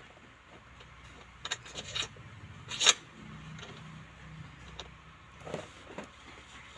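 Pipe-flaring work: a few sharp clicks and knocks from tools being handled. Two come close together, the loudest falls about three seconds in, and two weaker ones come near the end, over a faint low hum.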